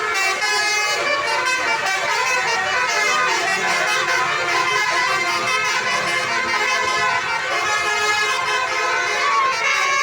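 Bus 'telolet' horn, a Basuri multi-tone horn, playing a continuous run of shifting tones.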